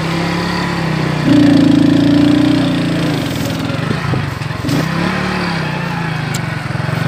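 Small motorcycle engine running while ridden over rough ground, revving up and getting louder about a second in, then easing back after a couple of seconds.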